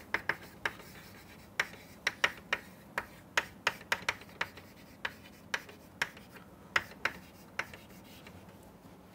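Chalk writing on a blackboard: a string of sharp, irregular taps and short scratches, about two a second, which stop near the end.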